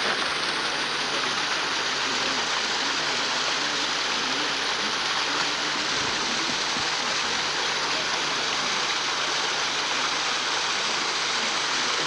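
Steady rushing hiss like running water, even in level throughout, with faint voices in the background.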